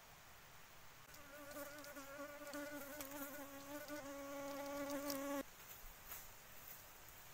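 A fly buzzing in flight: a steady hum with a slight wobble that starts about a second in and cuts off suddenly about four seconds later.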